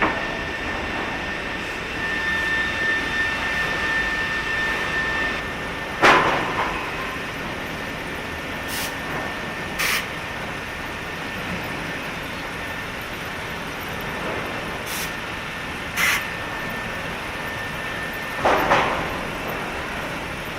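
Wood-processing factory machinery running steadily with a thin high whine, broken by several short sharp bursts of hiss and knocks.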